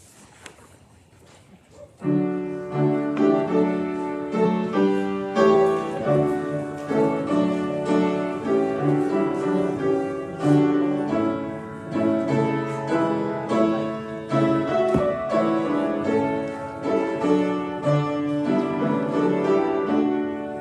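Piano playing a prelude, starting about two seconds in after a brief hush.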